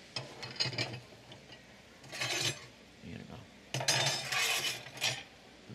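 Kitchen utensils and pans clattering and rustling on a countertop, in two spells of handling, with a faint low murmur of voices under them.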